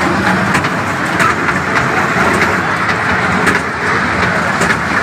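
Mechanical bull ride machinery running, a steady rushing noise with a few faint clicks.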